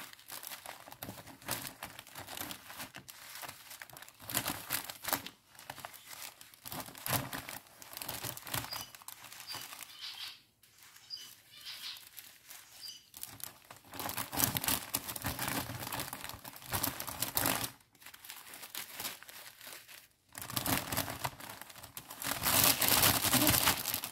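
Small plastic sachets of diamond painting drills crinkling and rustling in uneven bursts as they are handled and packed back into their bag. The loudest stretch comes near the end.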